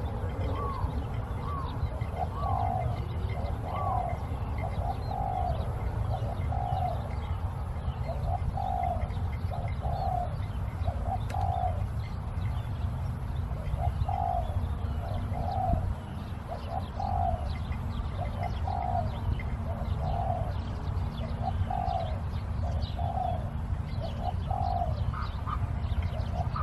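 A dove cooing over and over in a string of short coos, about one a second, over a steady low rumble, with faint high chirps of small birds.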